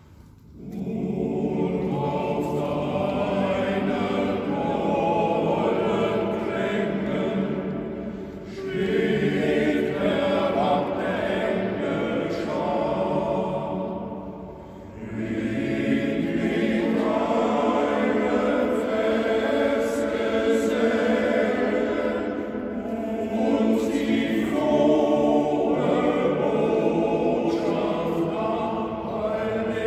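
Male voice choir singing, entering just under a second in and carrying on in long phrases with brief breaks about eight and fifteen seconds in.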